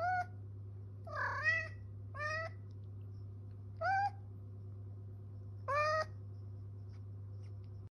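Domestic cat meowing, five short meows a second or two apart, the second one longer with a wavering pitch.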